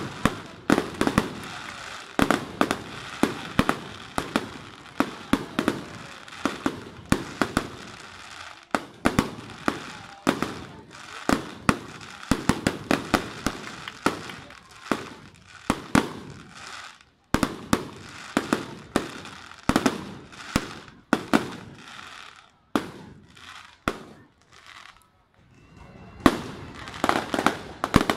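Fireworks display: aerial fireworks going off in quick, irregular bangs and crackles, often several a second. The bangs thin out to a lull about three-quarters through, then a dense volley follows near the end.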